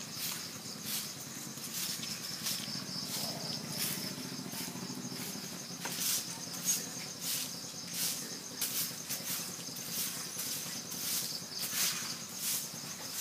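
Steady high-pitched insect chirping with a fine pulse, with irregular short clicks about every half second.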